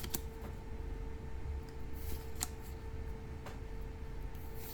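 Trading cards being handled and flipped through by hand, making a few light clicks and snaps over a steady low hum.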